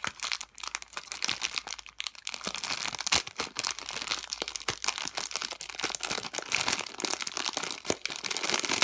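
Plastic packaging crinkling in a dense, irregular run of crackles as wrapped squishy toys are handled.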